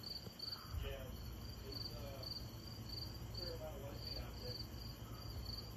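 Crickets chirping steadily, about two to three chirps a second, over a low steady rumble.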